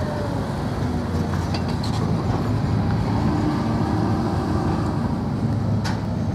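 Low, steady engine rumble with faint wavering tones above it.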